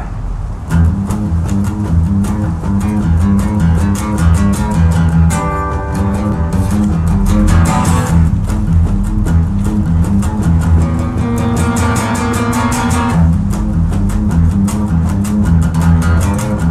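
Acoustic guitar strummed in a fast, steady rhythm over a repeating pattern of low notes, with no singing. It starts about a second in.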